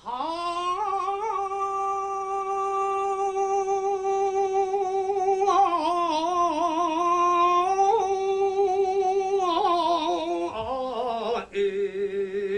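A sumo yobidashi's drawn-out ceremonial call, sung in one long-held voice: a sustained note for about five seconds, a wavering stretch, another long note, then shifts in pitch and a fresh held note near the end.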